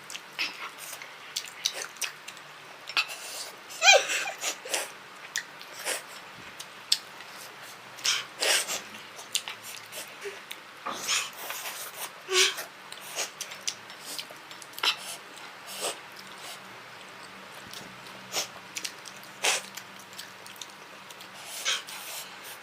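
A person eating extremely spicy instant noodles: irregular short, sudden slurps, sniffs and sharp breaths from a runny nose and a burning mouth.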